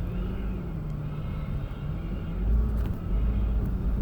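Car engine and road rumble heard from inside the cabin: a steady low hum, with the rumble growing stronger about two and a half seconds in.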